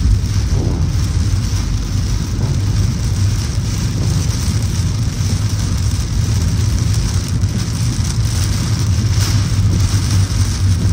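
A car driving in heavy rain: a steady low road and engine rumble under an even hiss of rain on the car.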